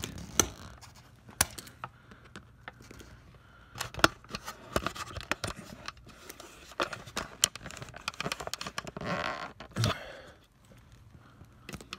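Self-adjusting pliers working at a screw stuck in a car tyre's tread: sharp metal clicks and snaps of the jaws as they grip and let go, the strongest about four seconds in, with a short scraping rush near the end.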